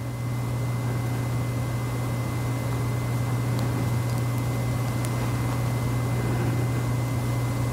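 A steady low hum with a thin, steady high-pitched tone above it, swelling slightly at the start and then holding even.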